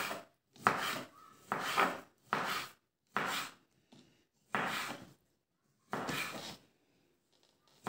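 Kitchen knife slicing a tomato on a bamboo cutting board: about seven short slicing strokes, each a scrape through the fruit ending on the wood, spaced unevenly about a second apart, then a pause near the end.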